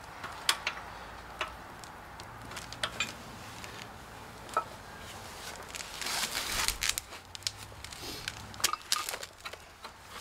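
Scattered light metallic clicks and knocks as the metal handle tube of an off-road floor jack is handled and fitted during assembly, with a rustling scrape about six seconds in.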